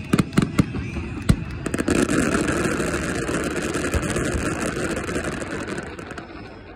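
Fireworks finale: a rapid string of sharp bangs and crackles, then about four seconds of dense, continuous crackling and rumble that fades away near the end.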